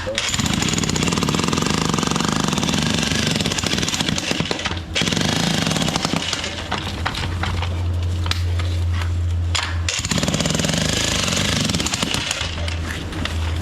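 Power breaker (jackhammer) hammering in rapid strokes, breaking briefly about five seconds and ten seconds in.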